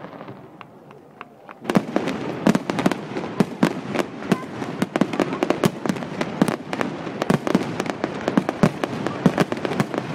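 Fireworks going off: a few faint cracks, then from just under two seconds in a dense, rapid barrage of sharp bangs and crackles, several a second.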